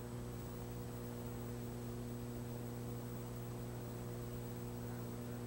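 Steady electrical mains hum over faint hiss, with no speech: a low hum carrying a few higher steady tones, unchanging throughout.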